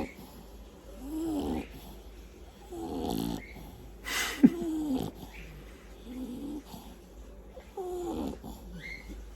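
French bulldog snoring: about five snores, one every one and a half to two seconds, each with a tone that rises and falls. A sharp click comes about four and a half seconds in.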